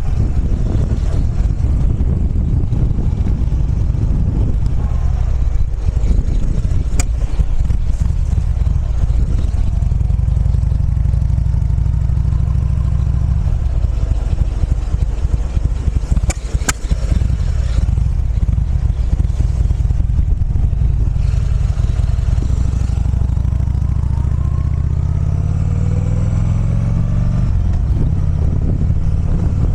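Motorcycle engine running under way, its pitch dropping and rising with throttle and gear changes, the revs climbing near the end. Two sharp clicks cut through, about a third of the way in and again past halfway.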